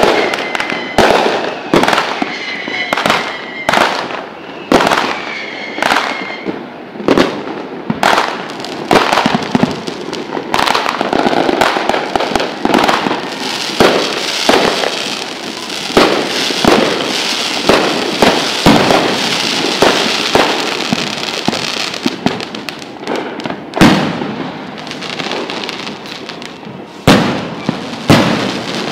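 Aerial fireworks shells bursting in a dense barrage: loud bangs, several a second at times, irregularly spaced and overlapping.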